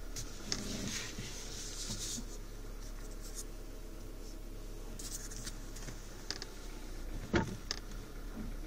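Scratching and rubbing handling noise from a phone held inside a car cabin, over a steady low hum, with a sharp click about seven seconds in.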